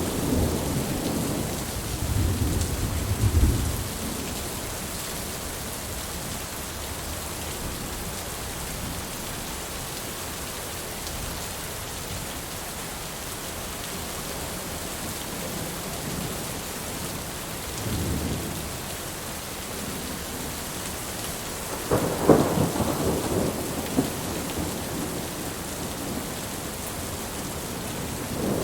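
Steady rain falling, with thunder rumbling several times over it: a low roll a few seconds in, a fainter one past the middle, and a louder, crackling peal about three-quarters of the way through.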